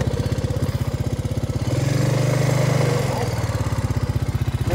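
2005 Honda FourTrax ATV's single-cylinder four-stroke engine running at a low, even chug. It grows a little louder a bit under two seconds in.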